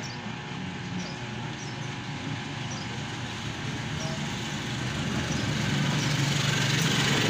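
Road traffic noise in the background, a steady rumble that swells louder over the last couple of seconds as a vehicle passes.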